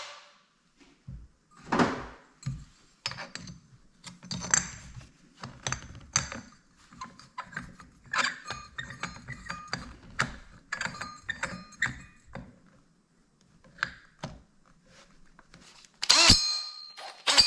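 Scattered clinks and knocks of metal tools and hardware being handled, short sharp strikes, some ringing, with a louder cluster of strikes about sixteen seconds in.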